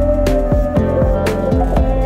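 Background music with a steady beat and a guitar.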